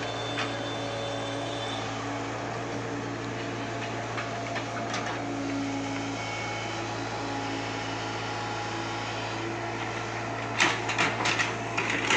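Tata Hitachi tracked excavator's diesel engine running with a steady hum as it digs. Near the end comes a quick series of sharp knocks.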